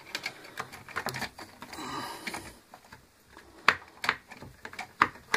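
Small screws and plastic parts of a steam iron being handled and set down on a wooden workbench: light clicks and taps with a brief rubbing sound, then several sharper clicks in the second half.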